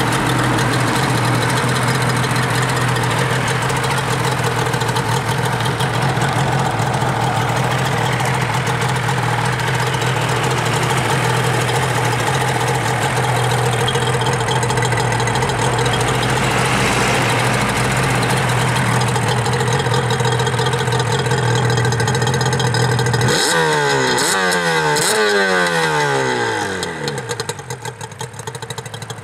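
Yamaha R1-Z's 249 cc two-stroke parallel twin idling steadily on its stock exhaust. About three-quarters of the way through, the revs rise and fall in a few quick throttle blips.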